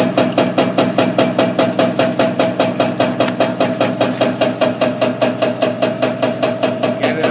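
Wave table running: its shaking deck knocks in an even rhythm of about four strokes a second over a steady motor hum.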